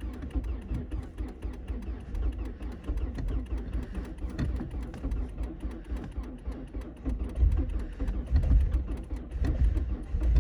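The 1999 Volvo S40's 1.8-litre engine is running at cold idle after a cold start, the car having sat for two months; it was hard to start. Its deep, uneven rumble swells and fades, and it grows louder near the end.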